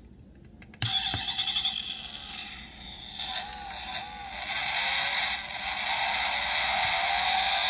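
Recorded car engine sound effect played through the small built-in speaker of a 1:32 die-cast Aston Martin Vantage GTE model, set off by pressing the bonnet. It starts suddenly about a second in, and the engine note rises in pitch, as if revving, toward the end.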